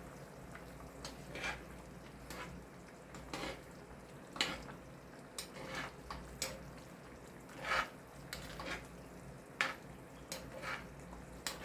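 A spoon clinking and scraping in a pot of soup, about a dozen short, irregular clicks over a low steady hum.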